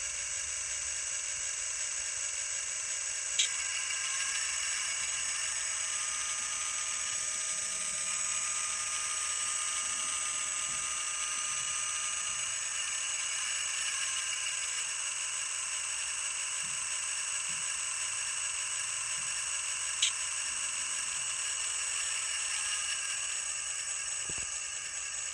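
An XL Systems N scale sound decoder plays a GE diesel prime-mover sound through its tiny speaker: a steady, thin engine drone with no bass. The GE sound has been selected by changing CV123. Two brief clicks come a few seconds in and again about 20 seconds in.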